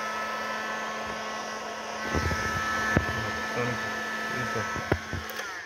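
Heat gun blowing steadily: an even hiss of hot air with a constant hum and whine, being passed over the surface to clear a blemish. It stops suddenly just before the end.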